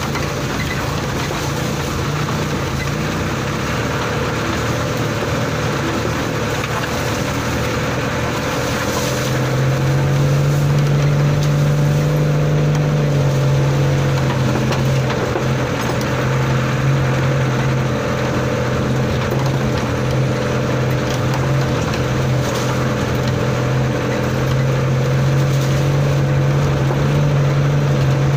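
Old truck's engine running under load, heard from inside the cab while driving a rough, muddy off-road track. Its note steps up and gets louder about ten seconds in, then holds steady.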